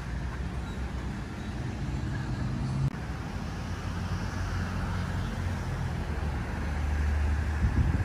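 Low, steady rumble of a motor vehicle engine, swelling louder from about five seconds in and dropping away just before the end. There is one sharp knock about three seconds in.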